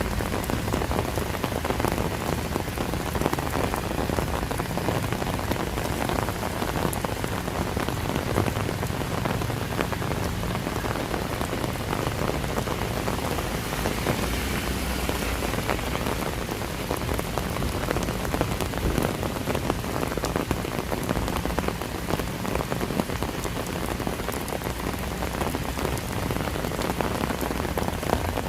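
Steady rain: an even hiss of drops hitting the ground, with many individual nearer drops ticking through it.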